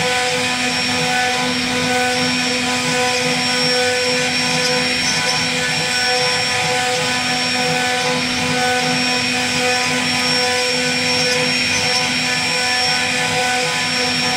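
CNC router spindle whining at a steady pitch as its bit carves a relief pattern into a wooden door panel, with the hiss of the cutter chipping through the wood.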